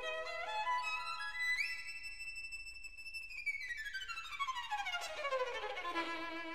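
Solo violin music: the violin climbs in quick steps to a long held high note, then slides slowly down in one long glide to a lower note held near the end.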